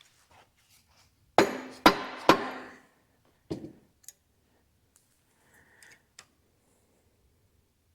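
Three ringing metal-on-metal strikes in quick succession about a second and a half in, a hammer on steel, followed by a softer knock and a few light clinks. This is typical of tapping a snap ring onto the pin of an excavator thumb to seat it.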